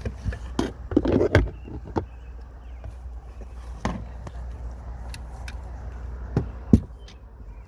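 Irregular knocks and clunks of gear being handled and loaded into a car, a few close together about a second in and the loudest one near the end, over a steady low rumble.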